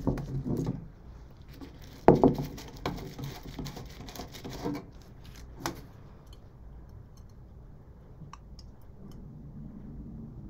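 Plastic jug of liquid casting resin being picked up and uncapped: knocks and clatter of plastic, with one sharp knock about two seconds in and a click a few seconds later as the cap is set down. Near the end, a faint pour of resin into a plastic cup.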